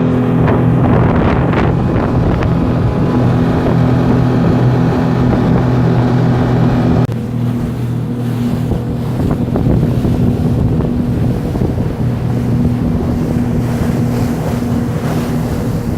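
Motorboat engine running steadily, with wind buffeting the microphone and water rushing past the hull. The engine sound drops abruptly about seven seconds in.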